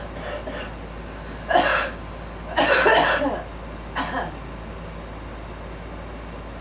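A girl coughing, coughs she puts down to allergies. A couple of faint coughs come near the start, then three louder coughs over the next few seconds, the middle one the longest.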